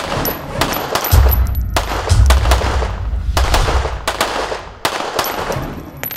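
Pistol shots in quick succession, about two a second, each with a ringing tail, over a heavy low rumble that starts about a second in.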